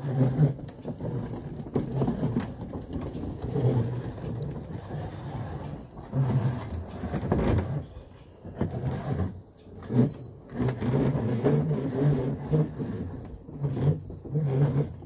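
Hard plastic wheels of a toddler's push car rumbling and rattling over wooden deck boards as it is pushed along, with a few sharp knocks where it jolts over the boards. The rumble dies down briefly a little past halfway, then picks up again.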